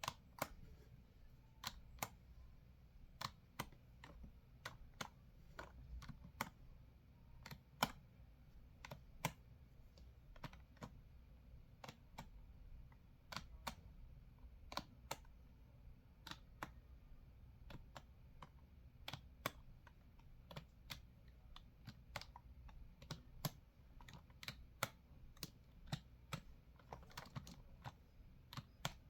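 Typing on a computer keyboard: irregular, quiet key clicks, a few to several a second, with no speech.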